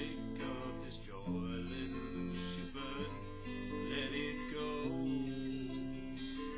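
Instrumental song passage: guitar strummed in slow chords, an electric guitar strung with acoustic strings, over sustained low notes that change every second or two.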